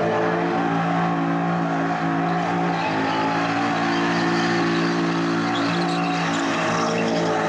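Holden Commodore ute doing a burnout: the engine is held high in the revs at a fairly steady pitch, dipping slightly a couple of times, over the rushing hiss of the spinning rear tyres.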